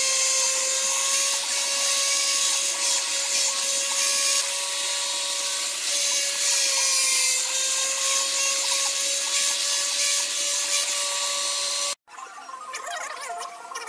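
Electric power tool running and cutting wood: a steady high whine with a hissing cutting noise over it, ending abruptly near the end, where quieter scattered sounds follow.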